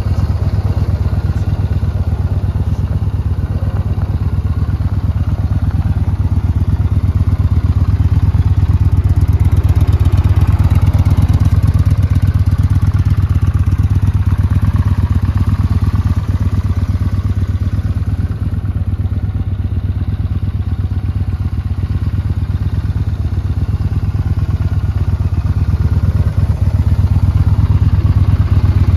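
Yamaha Bolt R-Spec's air-cooled 942cc 60° V-twin engine idling steadily, a loud, even low pulsing.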